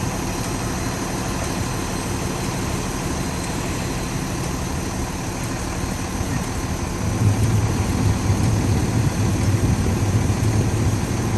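Motor vehicle engine idling steadily, its low hum growing louder about seven seconds in.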